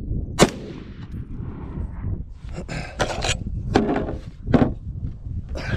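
A single shot from a semi-automatic LR308 (AR-10 pattern) rifle about half a second in, followed by several quieter clicks and knocks. The round cycles the action on gas setting 6 and the bolt locks back on the empty magazine.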